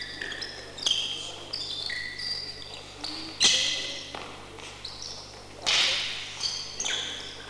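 Sports shoes squeaking again and again on a gym floor as canne de combat fighters move and lunge, with sharp whip-like cane strikes, the loudest about three and a half seconds in and another near six seconds.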